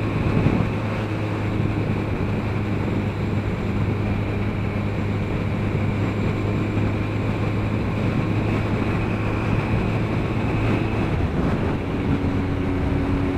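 Motorcycle engine running steadily at cruising speed, heard on board the bike, with steady road and wind noise; the engine note shifts slightly near the end.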